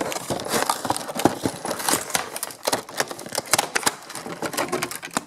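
Clear plastic blister packaging and a cardboard box insert being handled and pulled apart: a dense, uneven run of crinkles, crackles and clicks.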